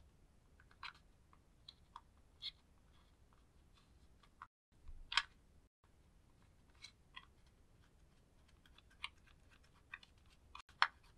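A thin pick scraping and digging pressed eyeshadow powder out of the pans of a plastic palette: irregular crisp scratches and clicks, loudest about five seconds in and again near the end.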